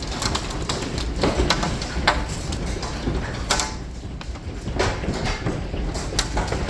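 Large hailstones pelting down in a dense, irregular clatter of sharp impacts, with a steady low rumble of the storm underneath.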